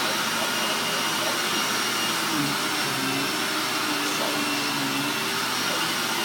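Vacuum cleaner running steadily: a constant rush of air with a thin, steady high whine.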